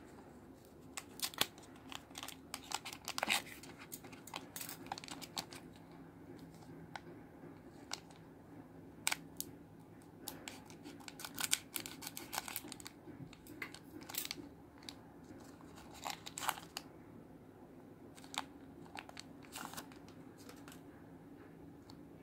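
A foil trading-card booster pack being crinkled in the hands and cut open with scissors: scattered sharp snips and crackles that come in clusters, with quieter handling between them.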